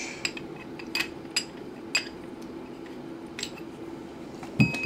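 Scattered light clicks, taps and small clinks as the parts and packaging of a paintball marker's cardboard box are handled and set down, over a steady low hum.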